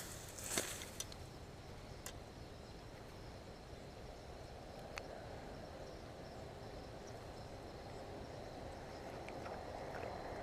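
Faint outdoor ambience: insects chirring steadily in a high register over a low background rumble, with a few small clicks.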